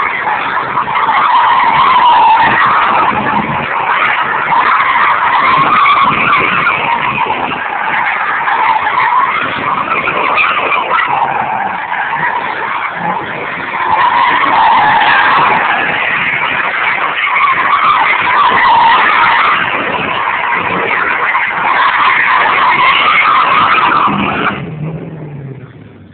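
Fox-body Ford Mustang LX doing a burnout and doughnuts: the rear tyres squeal loudly and continuously over the engine, the squeal swelling and easing as the car circles. Near the end the squeal dies away and the engine note falls.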